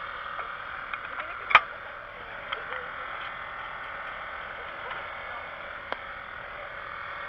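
A few sharp clinks of hand tools and lug nuts, the loudest about a second and a half in, over a steady background hiss.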